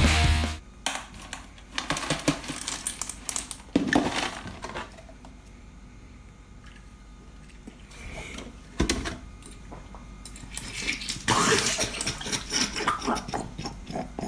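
A rock music sting cuts off just after the start, then sharp knocks and clatter on a kitchen counter. About three-quarters through comes a noisy burst of spluttering and splashing as milk poured into a mouth overflows.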